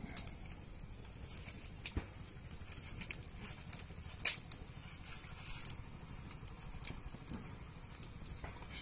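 Open wood fire crackling, with scattered sharp pops and clicks over a steady low rumble; one louder snap about four seconds in.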